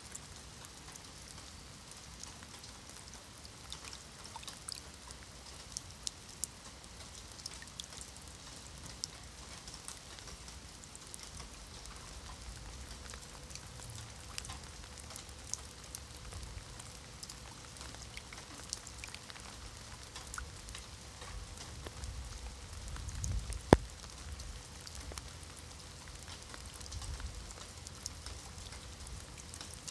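Rain falling on wet stone paving and into shallow puddles: a steady hiss with many small drop ticks and splashes. A low rumble swells in the second half, and a single sharp click, the loudest sound, comes about two-thirds of the way through.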